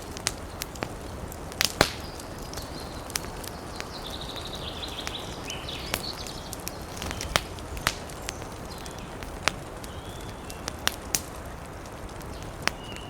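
Wood fire crackling: irregular sharp pops, a few of them loud, over a steady hiss and low rumble. A few faint high wavering squeaks come through about four to six seconds in.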